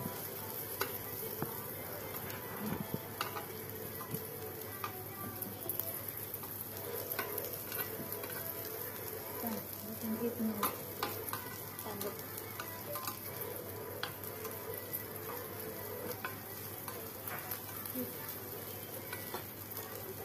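Pork belly sizzling steadily on a tabletop Korean barbecue grill plate, with scattered sharp ticks and pops throughout.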